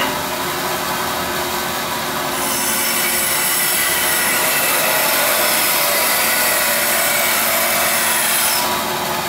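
Oliver 416D band saw running steadily while its blade cuts through a wooden board: the cutting hiss starts about two seconds in and stops shortly before the end, leaving the saw running. The machine runs smoothly and quietly.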